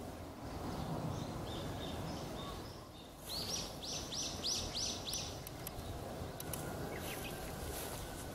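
A bird calling: a run of five quick, arching high notes about two a second, starting about three seconds in, after a few fainter notes. Steady low outdoor background noise runs underneath.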